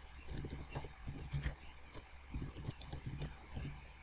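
Typing on a computer keyboard: a run of irregular key clicks, several a second.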